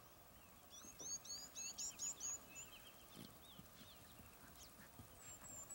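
A songbird singing: a quick run of about six sharp, high notes, each sliding down, about a second in, then a few lower notes, and a thin high whistle near the end, over faint open-air background noise.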